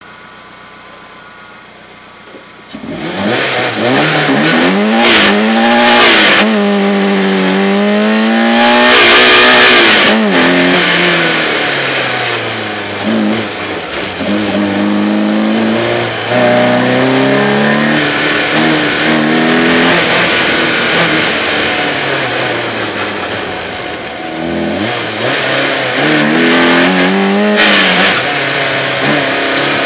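BMW 318is four-cylinder engine revving hard through a slalom run. Its pitch climbs and drops again and again as the car accelerates, shifts and lifts between gates. It is quiet for about the first three seconds, then suddenly gets loud as the car sets off, heard from a camera mounted outside the car.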